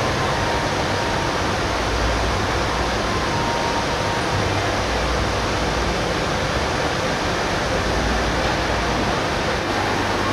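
Unisign Univers 4000 CNC machining centre running, a steady loud hiss with a low hum that swells and fades as its spindle head travels.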